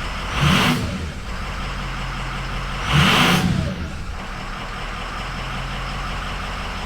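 Ford 6.0 Powerstroke V8 turbo-diesel idling steadily, blipped twice with short throttle revs that rise and fall back to idle, about half a second in and again about three seconds in. The engine is running freshly repaired with a new IPR valve.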